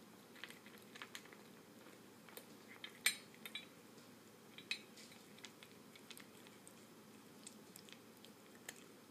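Cat eating dry kibble from a stainless steel bowl: faint crunching with irregular clicks and clinks, the loudest about three seconds in.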